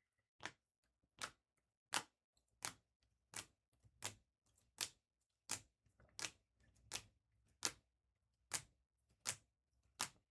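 Sharp taps at an even pace of about one every 0.7 seconds, some fourteen in all: trading cards in hard plastic holders being laid down on a table one after another.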